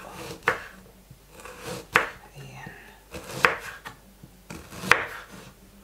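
Kitchen knife chopping through a raw carrot onto a wooden cutting board: four sharp chops, about a second and a half apart.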